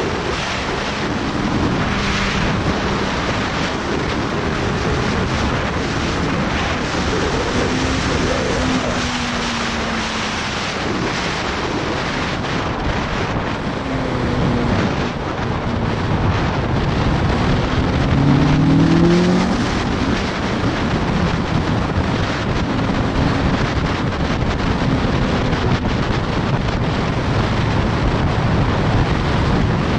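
Ariel Atom engine running hard at speed under heavy wind rush on the open-cockpit microphone, the engine note climbing and dropping through the gears, with a clear rising run about two-thirds of the way through.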